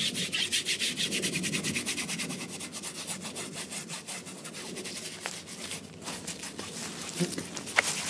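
Paintbrush scrubbing oil paint onto a stretched canvas in rapid back-and-forth strokes, about ten a second, easing off in the last couple of seconds.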